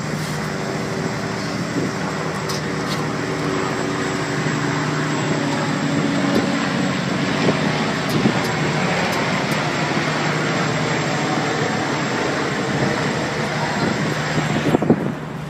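Ferry under way, heard from its open deck: a steady rushing noise with a low engine hum running beneath it. Just before the end the rush thins out suddenly.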